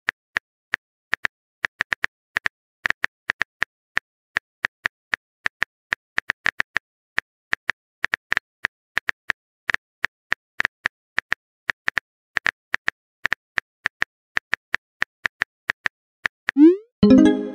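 Rapid, irregular clicks of a phone-keyboard typing sound effect. Near the end comes a short rising pop: a message-sent sound effect as a new chat bubble appears.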